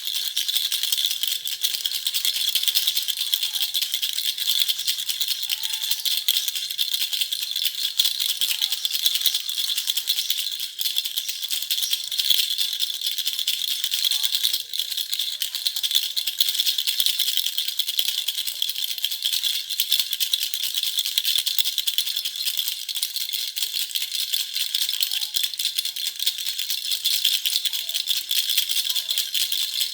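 Baby's jhunjhuna toy rattle shaken continuously, a dense, high-pitched jingling rattle with no pauses.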